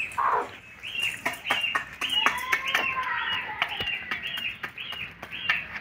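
A hen pecking rice from a metal bowl, her beak striking the bowl and grain in quick, irregular clicks, with a steady run of short, high chirps about three a second from small birds.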